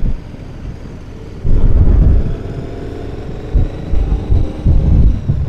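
Motorcycle engine running on the move, with wind buffeting the microphone. The engine note comes up louder about a second and a half in and then holds fairly steady.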